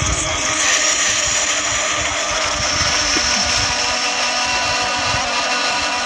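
Wind rumbling on the microphone outdoors over a steady droning hum with several held tones and a high hiss.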